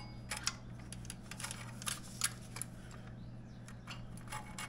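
Irregular light metallic clicks and scrapes as a stock motorcycle muffler is worked onto a Leo Vince mid pipe, metal on metal at the joint, over a steady low hum.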